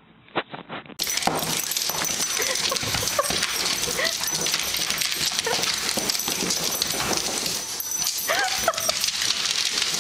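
Dog whimpering and yipping in short, high calls over a steady hiss, starting about a second in.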